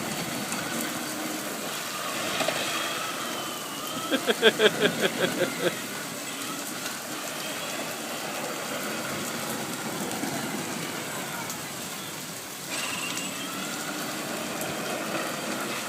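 Heavy rain pouring down steadily, with a brief pulsing voice-like sound about four seconds in.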